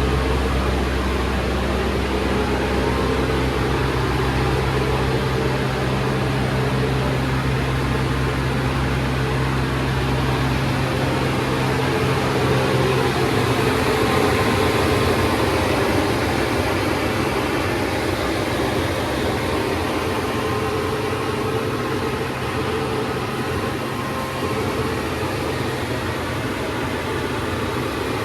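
Hazelnut harvesting machine running: a steady engine hum over a rushing, fan-like noise. The low hum drops away about ten seconds in, leaving the steady rushing noise.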